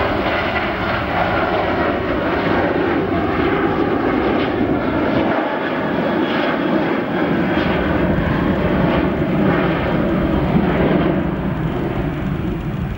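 Boeing 737-900's twin CFM56-7B turbofan engines at takeoff thrust as the jet climbs away after liftoff: a loud, steady jet roar.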